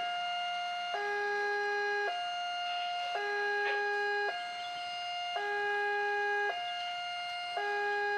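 Railway level-crossing warning alarm: an electronic signal alternating between a higher and a lower tone about once a second, sounding because a train is approaching the crossing.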